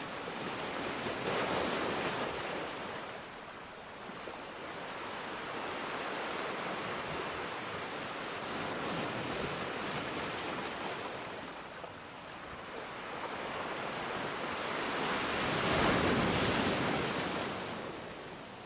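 Sea waves washing in onto the shore, rising and falling in swells, the loudest surge near the end.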